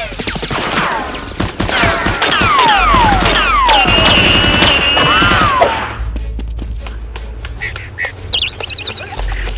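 Rapid gunfire sound effects, a dense run of shots mixed with repeated falling whistle-like tones, for about six seconds, then dying down to a few scattered sounds and a short run of quick high chirps near the end.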